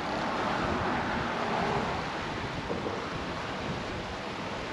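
Wind rushing over the microphone above choppy sea water, a gust swelling in the first two seconds and then easing to a steady rush.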